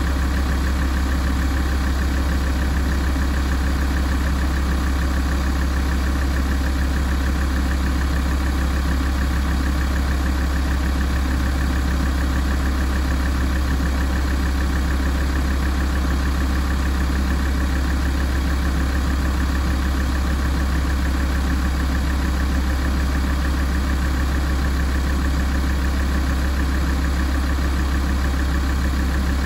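Alfa Romeo 166 2.4 JTDm five-cylinder common-rail diesel idling steadily while it warms up.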